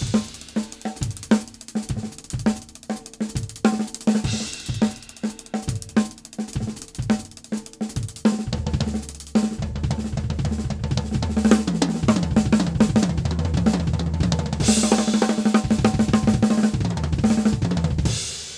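Drum kit solo with Meinl cymbals: snare, tom and kick hits in quick patterns, then from about halfway a dense, continuous run of fast kick drum strokes under the snare, with cymbal crashes near the end.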